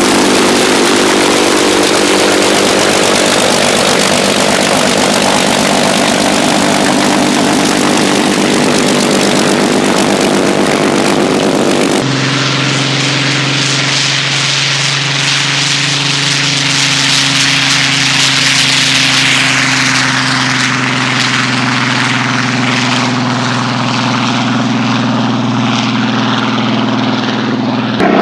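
Fairey Firefly's Rolls-Royce Griffon V-12 piston engine running with its propeller turning. About twelve seconds in, the sound changes abruptly to a lower, steady engine note.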